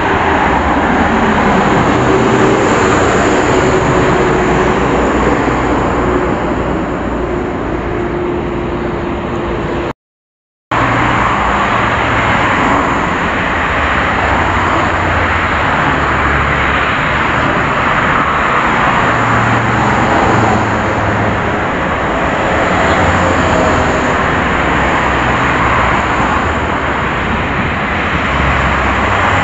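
Steady street-traffic noise from the road alongside: a continuous loud rushing hiss over an uneven low rumble. It cuts out completely for under a second about ten seconds in.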